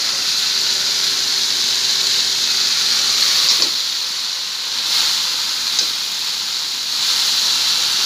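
Kalmi shak (water spinach) sizzling steadily as it fries in hot oil in an aluminium wok, with a few clicks from a metal spatula stirring it.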